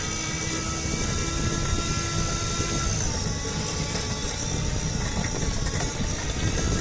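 Meyra iChair Basic electric wheelchair's drive motor running with a whine of several steady tones over a low rumble, the pitch dipping slightly about three seconds in. It is the weird noise from the motor that the owner is pointing out as something wrong.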